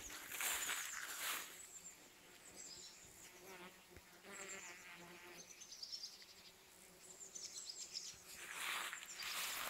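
A bee buzzing on flowering anise hyssop, loudest for about two seconds midway as it passes close by. Rustling near the start and again near the end.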